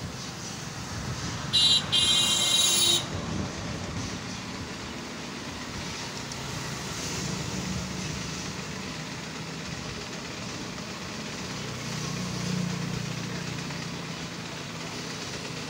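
Air hose chuck on a tractor front tyre's valve stem: a loud hiss of air in two short blasts about two seconds in, then a low steady hum while the tyre is being inflated.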